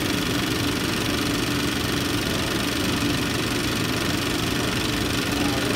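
Cinema projector running steadily in the projection booth: a constant mechanical whirr and fan noise with a steady hum.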